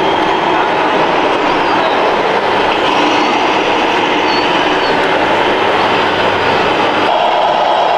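Scale RC trucks and construction machines running: a loud, steady mechanical running noise with rattling. It changes character about seven seconds in.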